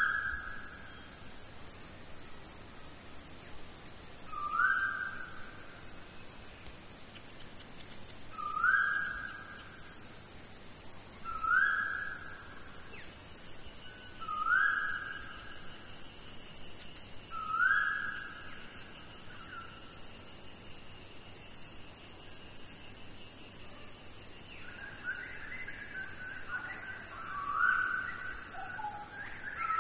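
A bird repeating a short whistled call every three to four seconds, each note rising slightly and then held, with a pause mid-way and several overlapping calls near the end, over a steady high hiss.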